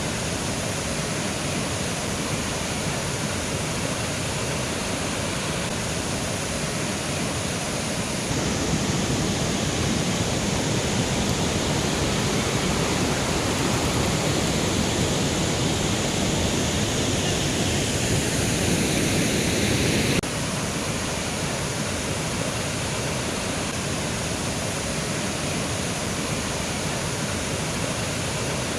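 Mountain river flowing with a steady rushing of water. It grows louder about a third of the way in and drops back suddenly a little past the middle.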